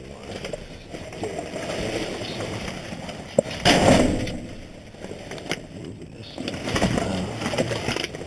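Plastic garbage bags rustling and crinkling as they are shoved aside and rummaged through in a dumpster. A sharp knock comes a little over three seconds in, followed by the loudest crumpling.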